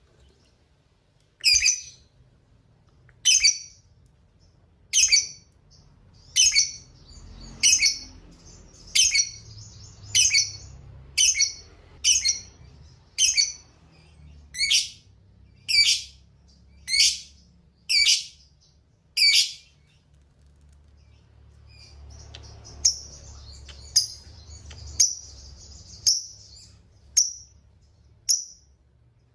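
Lovebird calling: a run of loud, shrill calls about one a second, then a quieter high chattering broken by shorter calls.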